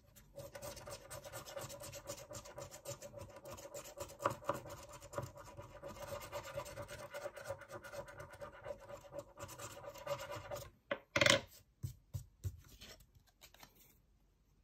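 Rapid, steady scratching of the silver scratch-off coating on an Amazon gift card, uncovering the card's code. After about ten seconds it stops, followed by one short, louder scrape and a few light knocks before it goes quiet.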